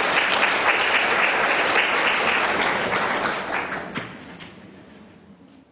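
Audience applauding, with dense clapping that thins out and dies away over the last couple of seconds.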